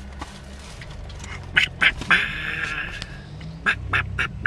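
A person doing a raspy duck voice: two short quacks, then a longer wavering stretch of garbled duck-talk about two seconds in, then a quick string of short quacks near the end.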